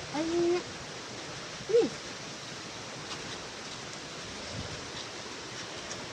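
A young child's high-pitched voice, a short drawn-out sound right at the start and a brief rising-and-falling call near two seconds in, over a steady hiss of background noise.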